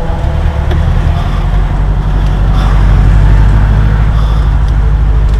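Subaru WRX STI's turbocharged 2.5-litre flat-four running at low revs as the car rolls slowly along, a steady deep drone heard from inside the cabin.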